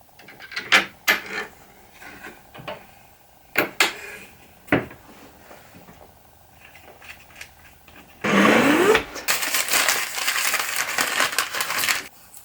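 Scattered knocks and clicks of a wooden piece and tools being handled, then about eight seconds in a loud, steady sanding noise that lasts about four seconds.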